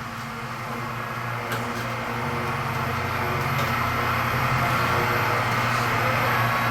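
Electric hoist motor (a cheap Harbor Freight electric hoist) running steadily under load as it winches a Mercedes steel hardtop up off the car, the hum slowly growing louder.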